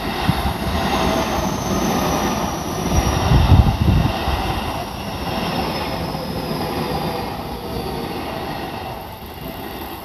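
Electric commuter train passing through the crossing close by: a heavy rumble of wheels on rail, loudest about three to four seconds in and fading near the end, with a thin high whine that slowly falls in pitch.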